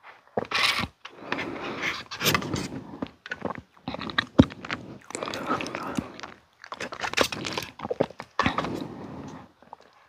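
Strawberry milk being sipped through a straw from a small plastic bottle, in a series of short drinking bursts with swallows and wet mouth clicks between them.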